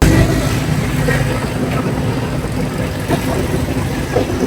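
A motor vehicle engine running steadily, a low hum.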